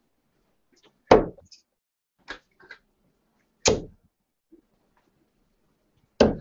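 Darts striking a dartboard: three sharp thuds about two and a half seconds apart, the first the loudest, with fainter clicks between.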